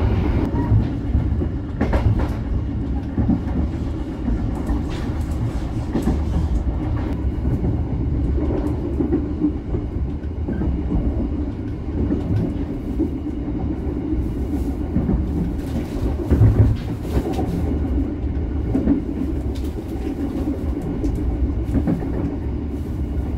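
Steady low rumble of a moving passenger train, heard from inside a business-class coach of the KA Malabar, with occasional sharp wheel clacks on the rails. The loudest clack comes about sixteen seconds in.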